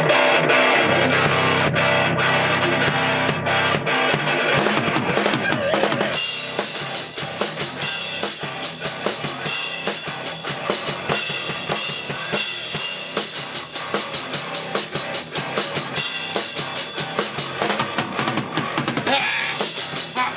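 A band playing live, with the drum kit close and loudest and guitars behind it. The first few seconds are a held, ringing chord, then fast, steady drumming starts about six seconds in and carries on.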